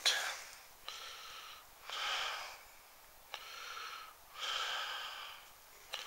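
A person breathing audibly close to the microphone: four separate breaths, each lasting under a second, with short gaps between.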